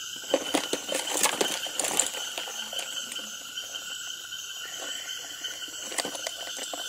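Night chorus of insects and frogs: steady, high, continuous buzzing calls. A few short clicks or knocks sound in the first two seconds and once about six seconds in.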